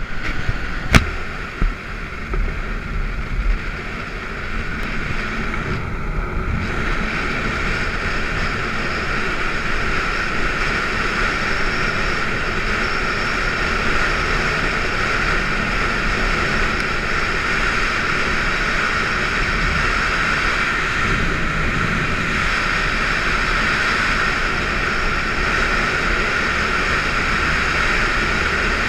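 BMW F650GS motorcycle running steadily along a gravel road, mixed with wind rushing over the camera microphone. A sharp knock about a second in and a few bumps in the first few seconds, then a steady sound.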